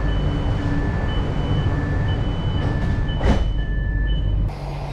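Metro train door-closing warning: two high beeps alternating, high and low, about twice a second, over the carriage's low rumble. The doors slide shut with a sharp knock a little over three seconds in, and the beeping stops soon after.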